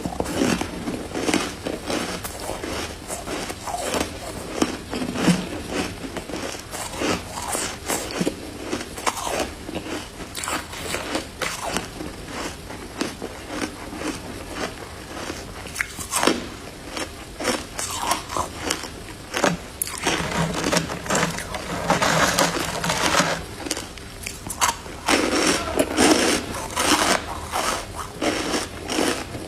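Crunchy white freezer-frost ice being bitten and chewed close to the microphone, a continuous run of crisp crunches and crackles, with heavier bursts of crunching about two-thirds of the way through and again near the end.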